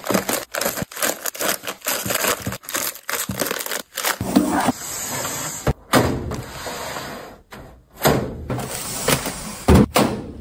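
Plastic-wrapped snack packets crinkling and clicking as they are stacked into white plastic organiser bins, with light knocks of the plastic bins being set on a shelf. Many short taps with rustling between them.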